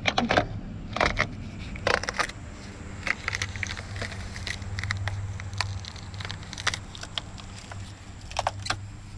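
Irregular clicks, knocks and scraping of car interior trim parts being handled and pried loose, over a steady low hum.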